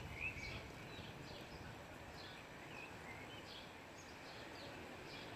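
Faint, scattered bird chirps, short and high, over a steady outdoor background hiss.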